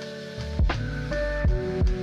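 Background music: a gentle instrumental track with sustained pitched tones, a bass line and a soft, regular beat.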